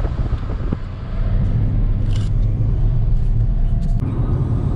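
Steady low rumble of a car driving, road and engine noise heard from inside the cabin, with a couple of brief clicks.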